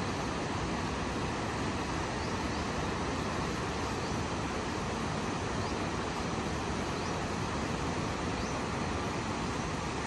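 Steady rushing of a wide, muddy, swollen river below, an even noise with no rises or breaks, and a few faint, short high chirps over it.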